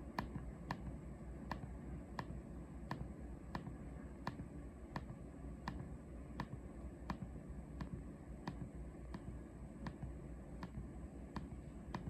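Buttons on a Yanmar air-conditioner wired remote control clicking in a steady rhythm, about once every 0.7 seconds. Each press steps the cooling set temperature down by one degree. A low steady hum runs underneath.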